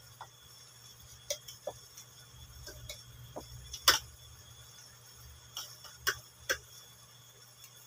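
Metal spoon and fork clinking and scraping against a ceramic plate in irregular sharp clicks, the loudest about four seconds in, over a low steady hum.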